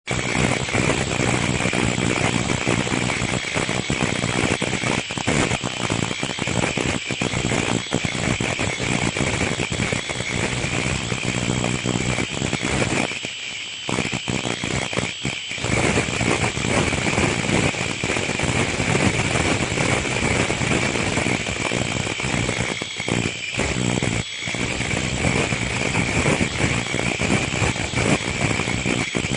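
Semi-automatic face-mask ear-loop welding machine running: continuous mechanical clatter and rattling with a steady high whine.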